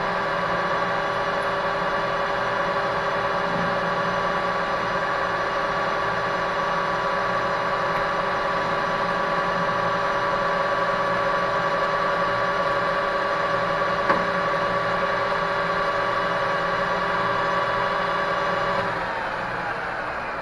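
Metal lathe running with a steady multi-tone whine from its spindle and gearing while it takes a light facing cut across a saw-cut bar end. A single click about 14 seconds in. Near the end the whine falls in pitch as the spindle is switched off and spins down.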